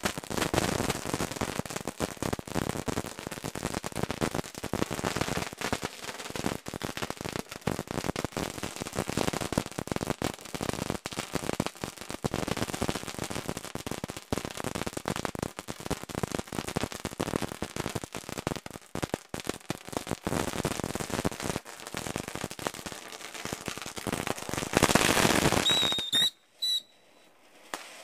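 Fireworks going off in a dense, irregular string of bangs and crackles. Near the end comes a loud hissing burst with a short whistle, and then the sound cuts out.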